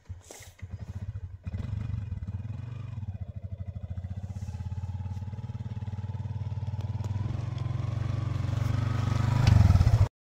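Small motorbike engine starting up and running at low speed. It grows louder as the bike rides up close, then cuts off suddenly near the end.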